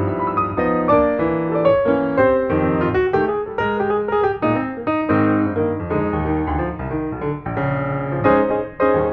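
Background music: a piano playing a continuous run of notes.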